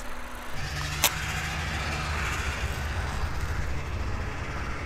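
A vehicle engine running steadily with a low rumble, with one sharp click about a second in.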